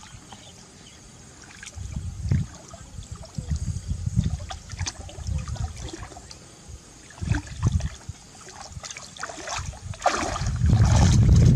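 Shallow water splashing and trickling in irregular bouts, with low sloshing rumbles swelling and fading and a few sharp clicks, loudest near the end.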